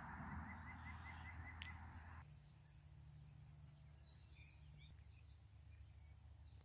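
Near silence: faint outdoor ambience with a steady low hum, a soft hiss that cuts off about two seconds in, and a faint high rhythmic trill in the second half.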